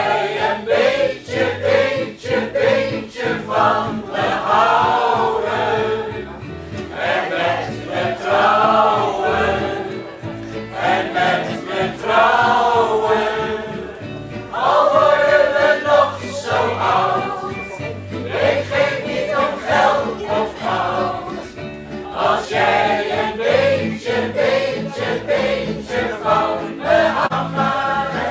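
Mixed choir singing a song in several voices, with a small band accompanying, ukulele among the instruments.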